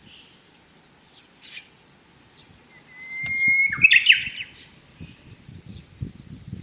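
Japanese bush warbler (uguisu) singing its song once: a long, slightly rising whistle about three seconds in, ending in a quick falling flourish. A few faint short chirps come before it.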